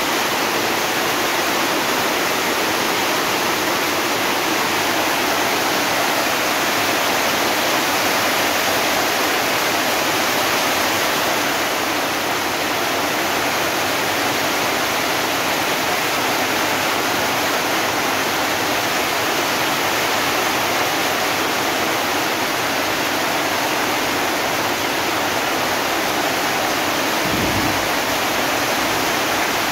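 Heavy monsoon downpour: a steady, dense hiss of rain falling on a muddy yard and corrugated tin roofs.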